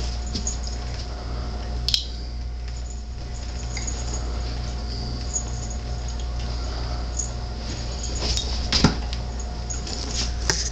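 A basset hound and a black cat play-fighting on a couch: a few brief clicks and a soft thump from their scuffling, over a steady low hum.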